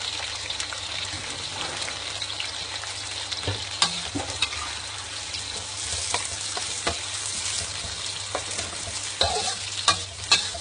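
Sliced onions sizzling in hot oil with ginger, garlic and red chilli as they are stir-fried, with a spatula knocking and scraping against the pan now and then.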